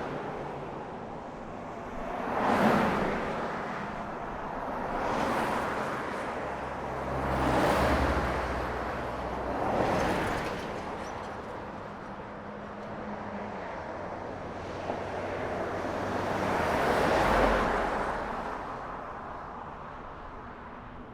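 City road traffic: cars passing one after another, each swelling up and fading away, five passes with a longer lull between about 11 and 16 seconds in. A deeper engine hum runs under the passes in the middle.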